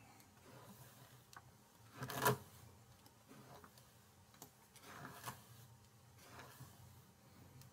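A hairbrush being pulled through long hair: a few short brush strokes, the loudest about two seconds in, with faint ticks between.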